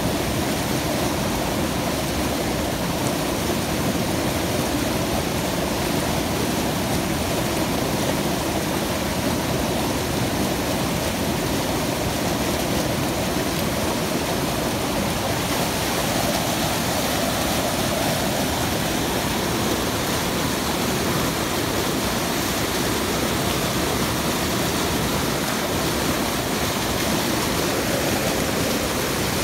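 Steady, unbroken rush of fast-flowing mountain water, filling everything from low to high.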